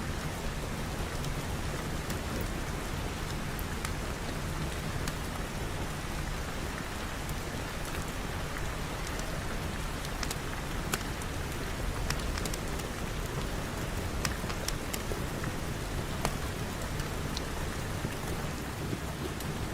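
Steady rainfall, an even hiss with scattered sharp drop ticks.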